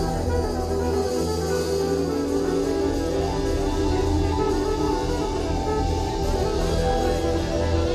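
A live New Zealand reggae band playing through a PA, with electric guitar and drums over a heavy, steady bass.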